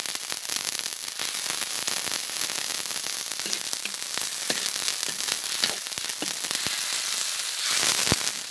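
Crushed lemongrass and chili sizzling and crackling in a hot wok of oil and a little water, stirred with a metal spatula. The sizzle swells briefly near the end, with one sharp knock.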